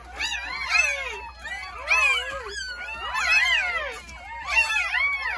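A litter of newborn Jindo puppies crying and squealing, several at once, in overlapping calls that rise and fall in pitch.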